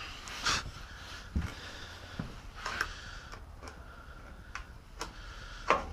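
Scattered light clicks and knocks of handling, with a low thump about a second and a half in: a table saw's miter gauge being picked up from among its packed accessories and handled.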